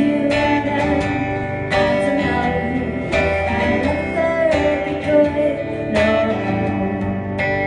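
Live country music: guitars strumming chords in a steady rhythm.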